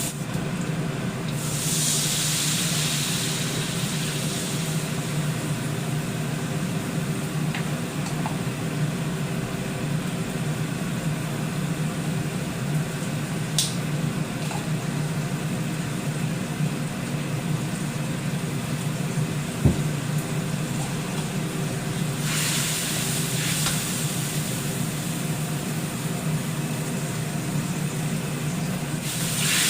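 Food sizzling in a hot frying pan over a steady low hum, the sizzle swelling louder about two seconds in and again for the last several seconds. A single knock sounds a little past the middle.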